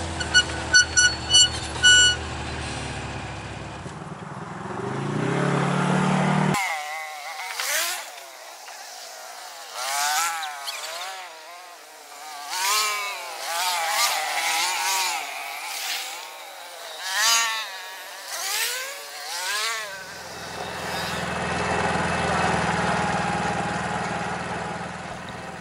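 Side-by-side off-road vehicle engines. It opens with a run of about five short beeps, then one engine revs up as the machine pulls away. After a cut, several engines rev up and down as they pass by, and near the end a steady low engine drone is heard from on board.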